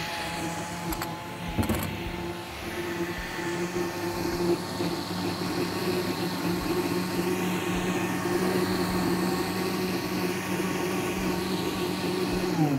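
Countertop electric blender running at a steady pitch, blending guava with milk into juice. Near the end it is switched off and its motor whine drops in pitch as it spins down.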